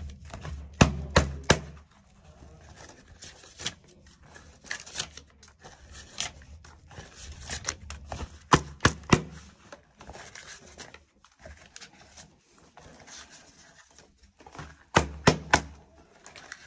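Sharp taps or knocks in quick groups of three, heard three times: about a second in, about eight and a half seconds in, and near the end. Fainter rustling and handling noise fill the gaps.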